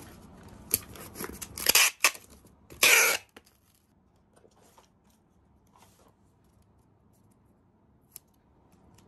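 Packing tape pulled off its roll and pressed across a cardboard box, two loud strips of noise about two and three seconds in, after a few clicks of the box flaps being closed; then only faint handling sounds.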